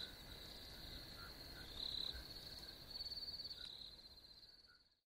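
Faint crickets chirping in a steady high trill, with a few louder pulsing trills along the way, fading out near the end.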